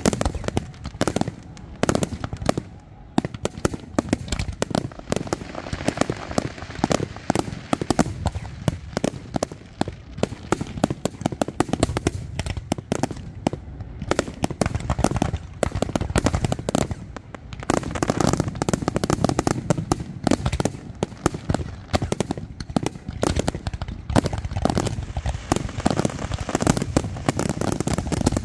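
Fireworks display: a dense, continuous barrage of aerial shell bursts, bangs following one another several times a second without a pause.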